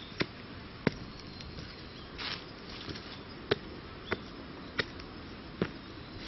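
Footsteps going down concrete steps and onto dry fallen leaves: a series of short, sharp footfalls, with a brief rustle of leaves about two seconds in.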